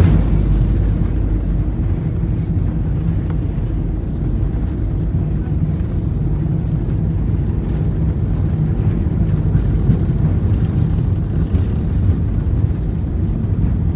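Airbus A320neo cabin noise during the landing rollout: a steady low rumble of the wheels on the runway and the CFM LEAP-1A engines, heard from inside the cabin beside the wing. A brief thump comes right at the start.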